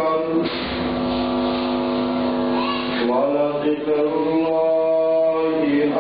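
A male reciter chanting in a slow melodic voice, holding long sustained notes. The pitch slides up to a new note about three seconds in.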